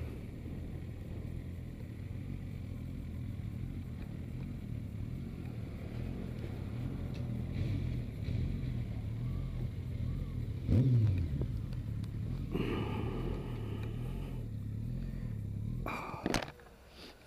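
Inline-four motorcycle engine running at low speed and idling as the bike rolls in, with one short, loud rev a little past halfway. The engine note stops suddenly near the end, leaving a few short knocks.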